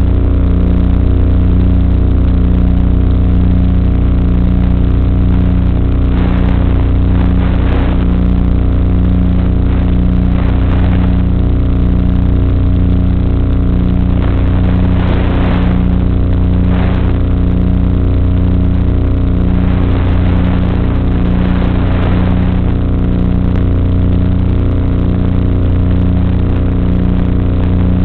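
Steady electric motor and propeller drone of an FPV aircraft, heard through its onboard camera's microphone, with a slow pulsing in the hum. Hissy surges of noise come and go several times over it.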